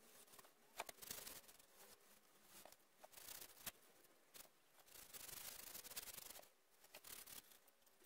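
Faint rubbing on a varnished wooden frame, a hand sliding over the surface and a varnish brush stroking it near the end, with a few light clicks.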